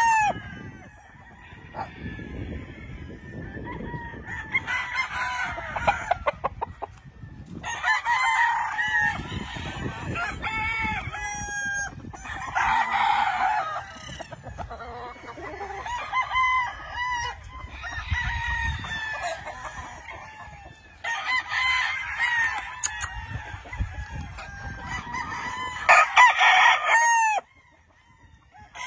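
Gamefowl roosters crowing one after another, some crows overlapping, with hens or roosters clucking between them and a low rumble underneath.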